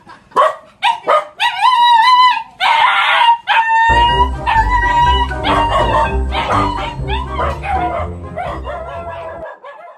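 A small dog barking and yelping in short sharp cries, then a drawn-out wavering howl. Music with a steady beat starts about four seconds in and runs almost to the end.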